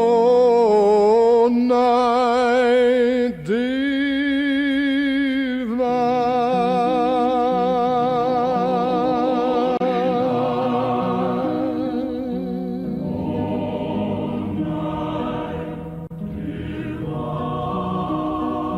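Recorded music: long sung notes held with a wide vibrato over accompaniment, with a short break about three and a half seconds in, giving way to softer, steadier instrumental chords.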